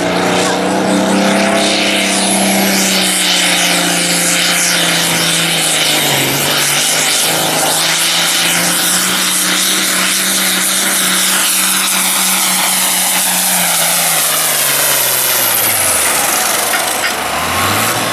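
Turbocharged diesel engine of a Ford 9600 pulling tractor running flat out under load as it drags a sled, with a high turbo whistle over the engine note. Near the end the whistle winds down and the revs fall off as the pull finishes.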